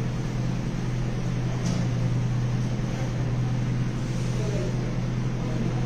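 A steady low mechanical hum under a constant even hiss, unchanging throughout.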